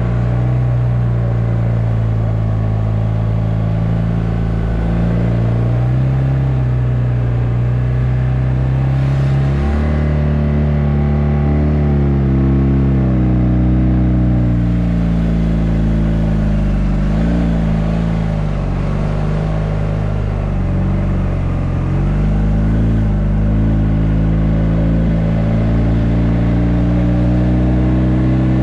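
Motorcycle engine running under load on a climbing mountain road, heard from a helmet-mounted camera. Its pitch holds steady, steps up about a third of the way through, then drops and climbs again several times as the rider eases off and reopens the throttle through hairpin curves.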